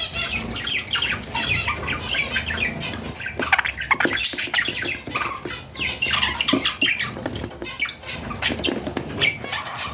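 Budgerigar chicks giving continuous harsh, raspy squawks, the begging calls of chicks at feeding time, with short clicks mixed in.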